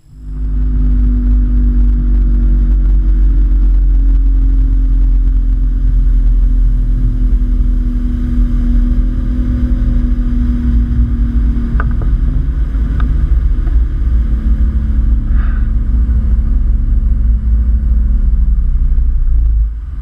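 Boat's outboard motor running at a steady speed, with heavy wind rumble on the microphone; the sound drops off near the end.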